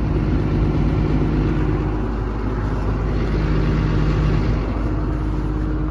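Doosan 255LC-V excavator's diesel engine idling steadily, a constant low drone.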